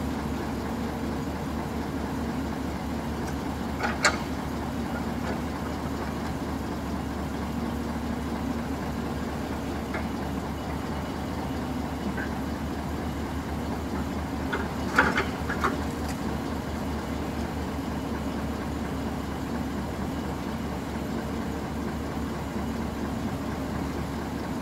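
Heavy diesel engine of a log-loading excavator running steadily. A few sharp knocks cut through it, one about four seconds in and a short cluster about fifteen seconds in, as logs are set down.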